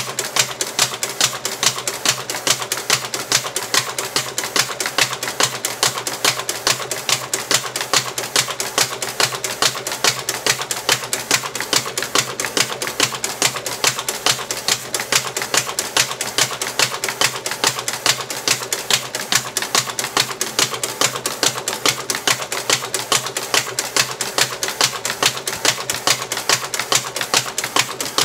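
MBM 98M tabletop paper folder running, feeding and half-folding letter-size sheets one after another: a rapid, regular clacking, about three to four a second, over a steady motor hum.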